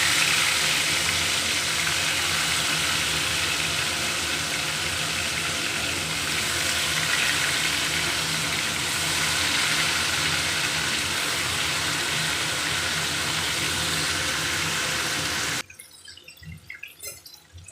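Pieces of bhola fish frying in hot oil with a loud, steady sizzle, which cuts off suddenly near the end.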